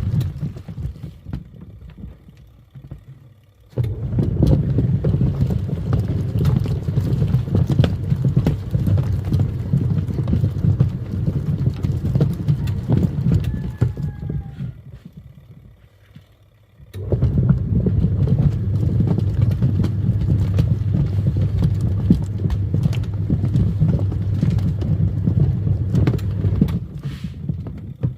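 Twin-tub washing machine's wash tub churning foamy water: a steady motor hum with rhythmic sloshing. It drops away a few seconds in, starts again, and stops and restarts once more about halfway through, as the wash cycle pauses between runs.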